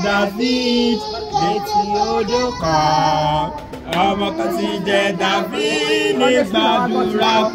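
A young boy singing into a handheld microphone, his voice amplified through a portable loudspeaker, holding long steady notes.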